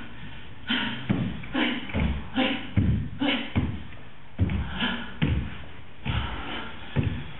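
A run of irregular thumps, about one a second, several of them with a short vocal sound.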